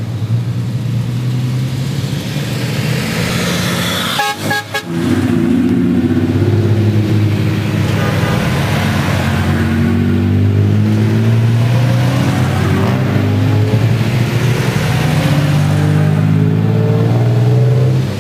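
Toyota Tacoma X-Runner pickups with 4.0-litre V6 engines driving past one after another, the engine note rising in pitch as each truck pulls away at low speed. A few brief horn toots sound about four seconds in.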